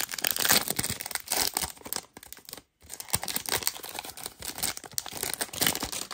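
Wrapper of a trading-card pack being torn open and crinkled by hand, in two spells with a brief pause a little over two seconds in.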